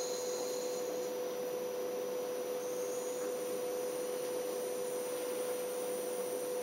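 A steady, even hum on one tone over a background hiss, with no audible breathing rhythm.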